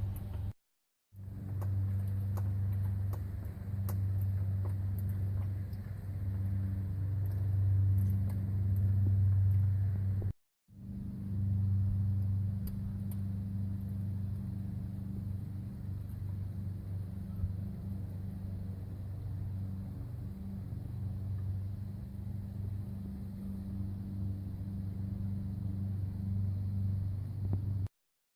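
Sprinter van running with a steady low hum and rumble, in three stretches split by brief cuts. The hum grows louder about eight to ten seconds in.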